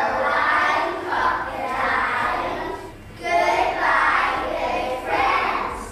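A group of young children singing a song together in unison, in phrases of about two seconds with short breaks between them.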